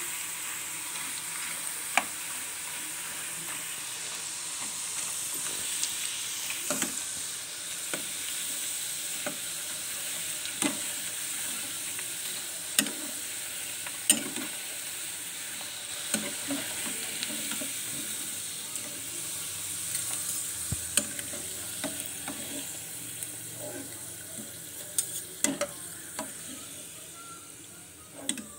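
Raw banana chips deep-frying in olive oil with a steady sizzle, while a metal spoon stirs and lifts them, knocking now and then against the pan. The sizzle dies down near the end as the chips come out of the oil.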